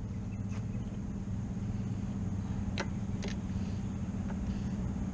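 Steady low mechanical hum with a few short, sharp metal clicks of a socket wrench loosening the spark plugs on an old two-stroke outboard; the two strongest clicks come close together a little past the middle.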